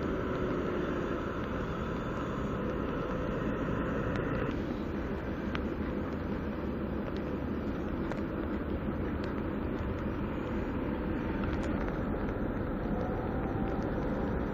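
Steady outdoor rumble of a railway yard with a faint engine hum, the background changing abruptly about four and a half seconds in.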